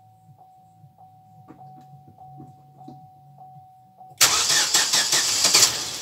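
Rebuilt Chevrolet Cruze four-cylinder engine, fitted with a new crankshaft, being cranked by the starter on its first start: a sudden loud burst about four seconds in that lasts about two seconds and then eases off.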